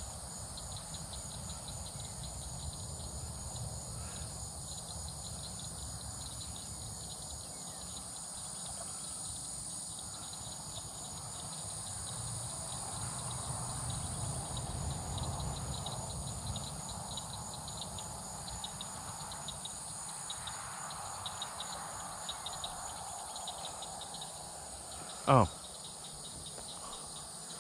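Steady chorus of trilling insects, a continuous high pulsing trill, with a low rumble under it.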